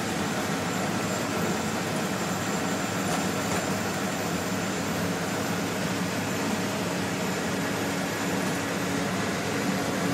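Steady engine drone and road noise from a vehicle driving at highway speed, heard inside its cabin.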